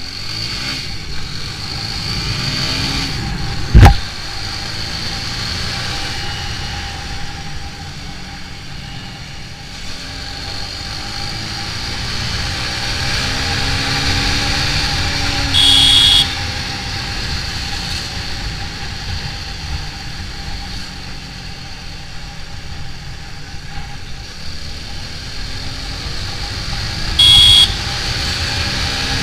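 TVS Apache RTR 200's single-cylinder engine running under way, its carburettor freshly tuned, pulling up through the speeds, with wind noise on the microphone. A sharp thump comes about four seconds in, and the horn beeps twice, briefly, near the middle and near the end.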